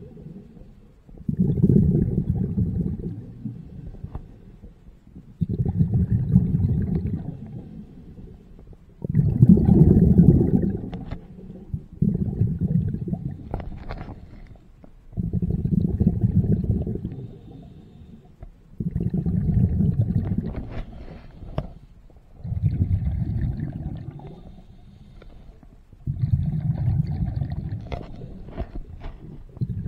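Scuba diver's exhaled bubbles rumbling out of the regulator and past the underwater camera, a low burst with each breath every three to four seconds, quieter between breaths.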